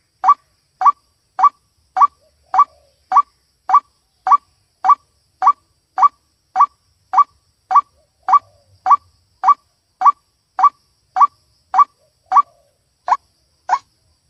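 White-breasted waterhen (ruak-ruak) call played as a bird-luring recording: one short note repeated at an even, monotonous rate of a little under two a second.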